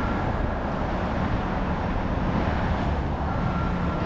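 Steady city street traffic noise with the low hum of vehicle engines; a faint thin steady tone joins near the end.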